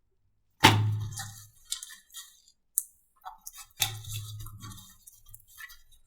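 Slime being squished: two soft thumps about three seconds apart, each followed by a scatter of small crackles and pops.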